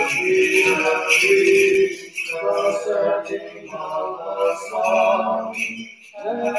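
Voices chanting a Byzantine liturgical hymn, with the small bells of a swinging censer jingling.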